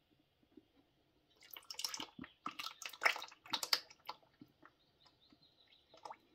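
Hydraulic oil pouring and splashing into a bucket as the hydraulic filter is loosened from its threads: a couple of seconds of irregular splattering, then a few scattered drips.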